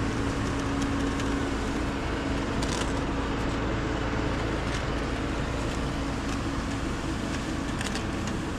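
A motor vehicle engine running steadily, a continuous drone with a low hum that fades a little before the end, with a few faint ticks over it.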